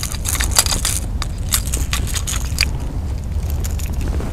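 Metal fishing pliers and lure hooks clicking and scraping in irregular short clicks as a small jack (carapau) is unhooked from a stick-bait lure, stopping about three seconds in. A steady low rumble runs underneath.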